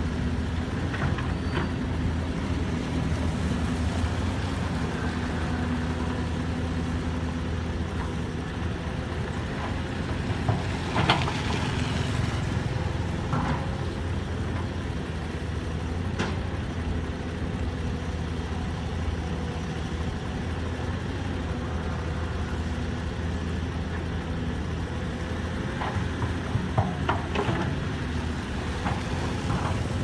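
Caterpillar hydraulic excavator's diesel engine running steadily while the machine works its boom and arm, with a few short metallic knocks, the loudest about eleven seconds in and a small cluster near the end.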